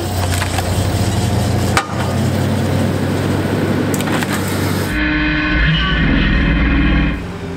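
Skid steer engine running with the feller buncher's hydraulic cutting disc at work: a loud, steady machine hum with a few sharp clicks. The sound changes abruptly about two, five and seven seconds in, with a steady whine between five and seven seconds.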